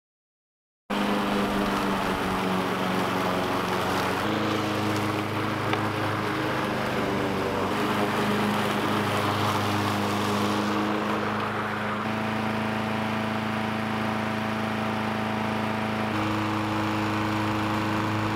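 Walk-behind rotary lawn mower's small single-cylinder engine running steadily while cutting grass, fuelled with brake parts cleaner. Its note steps to a different pitch a few times.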